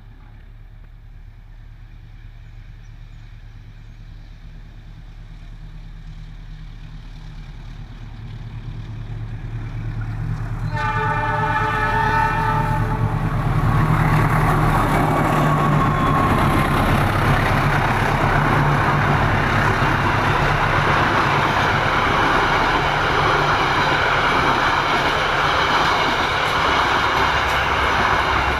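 An Indonesian diesel locomotive approaches with its engine rumble growing steadily louder. It sounds its horn once for about two seconds, about eleven seconds in, then passes close with loud wheel and rail noise that continues to the end.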